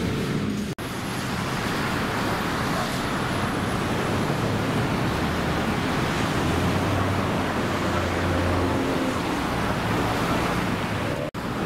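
Steady city road traffic noise, a wash of passing cars, with a lower engine drone swelling for a couple of seconds past the middle. The sound cuts out abruptly for an instant twice, near the start and near the end.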